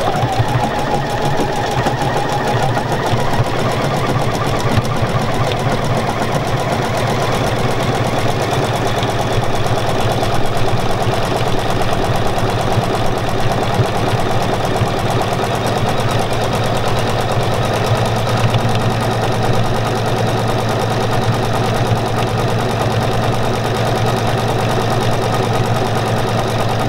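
Juki HZL-NX7 computerised sewing machine running steadily at speed, stitching an automatic keyhole buttonhole through curtain fabric with its buttonhole foot.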